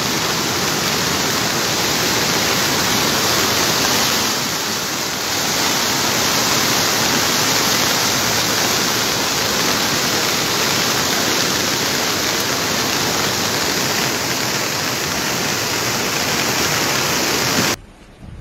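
Floodwater rushing through a swollen river channel: a loud, steady, churning rush of water that cuts off suddenly near the end.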